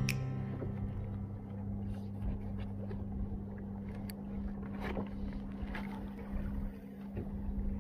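Small waves slapping against a plastic sit-on-top kayak hull in the wind, with a few sharp knocks and a steady low hum underneath.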